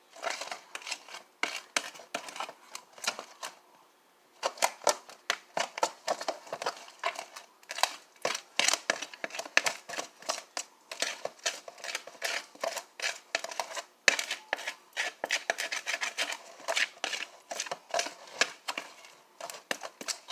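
Glitter and glue being stirred in a container for slime: a quick, uneven run of short clicks and scrapes, with brief pauses.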